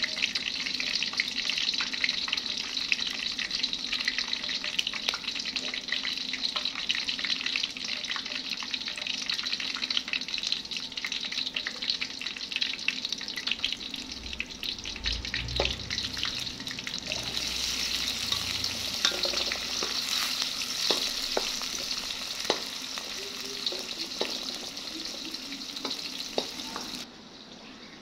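Oil sizzling and crackling steadily in a steel karahi on a gas burner, with scattered small pops. It drops abruptly to a quieter sizzle near the end.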